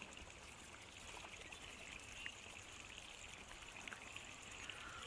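Faint steady water-like hiss of pond-side ambience, with a few soft clicks.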